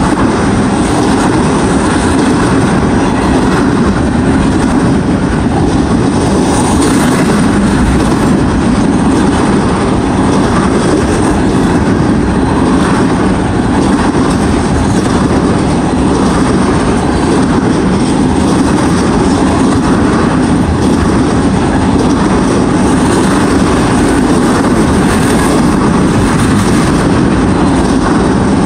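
Freight train of ethanol tank cars rolling past at speed, a steady, loud rumble of steel wheels on the rails with no letup.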